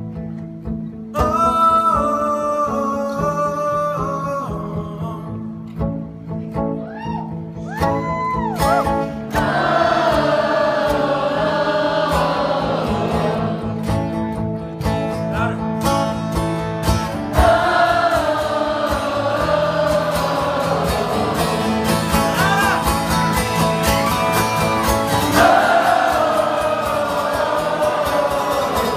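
Live acoustic guitar strumming under wordless singing by many voices together, fuller from about a third of the way in.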